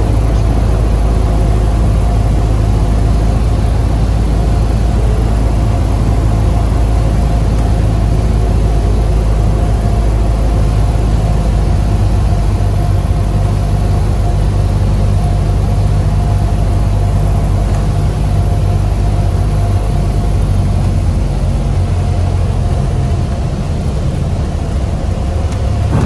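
Cessna 182's single six-cylinder piston engine and propeller droning steadily, heard from inside the cabin on a landing approach. The sound eases slightly a few seconds before the end, as the aircraft comes in low over the grass.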